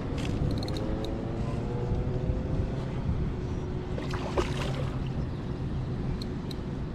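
Steady wind and water noise out on open water, with a faint engine drone slowly rising in pitch over the first few seconds and a few light clicks and splashes.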